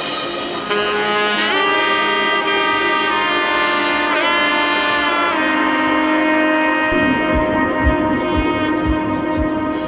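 Background music: a sustained melody line with sweeping pitch bends, and a soft low beat coming in about seven seconds in.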